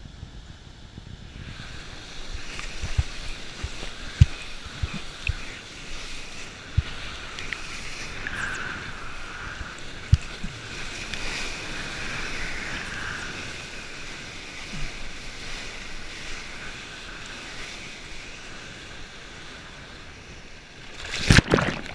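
Sea surf and foaming whitewater rushing close around the microphone, choppy and wind-blown. Sharp low thumps come now and then, and a loud splash near the end.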